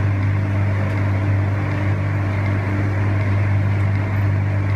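A steady low hum with a hiss over it, unchanging throughout.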